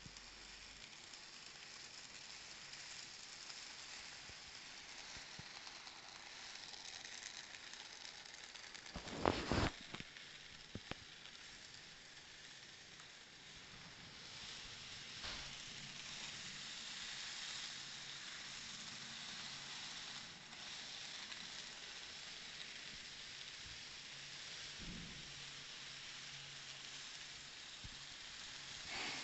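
Faint steady hiss and rattle of a Z-scale model train running on its track, with a few sharp knocks, the loudest a short cluster about nine seconds in.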